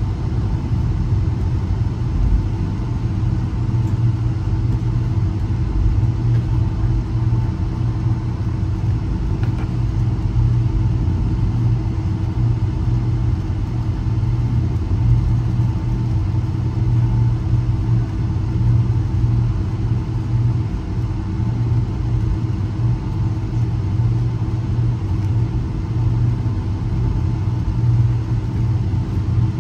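Steady cabin noise inside a Boeing 757 on the ground before takeoff: a low rumble from the engines at idle and the airframe, with a faint steady hum on top.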